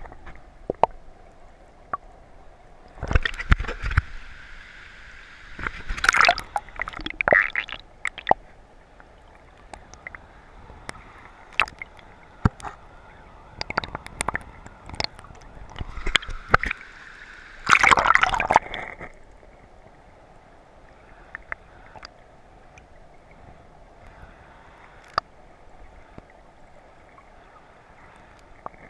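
River water gurgling and sloshing around a submerged camera in the current, with scattered sharp clicks and a few louder gurgling surges, settling to a quieter flow for the last third.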